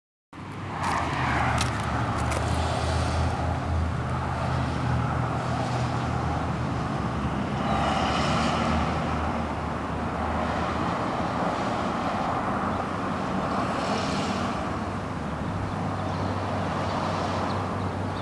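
Street traffic: a steady rumble of road noise, with a few cars passing that swell and fade every few seconds.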